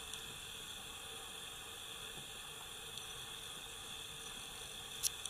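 Steady, even background hiss with a few faint high steady tones running through it, and a sharp click near the end.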